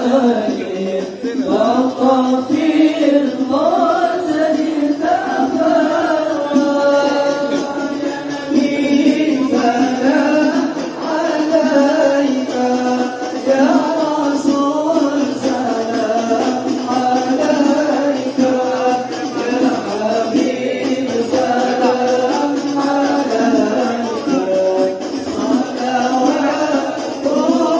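A group of young male voices singing a devotional Islamic song (shalawat) together in a chant-like melody, as sung during mahallul qiyam.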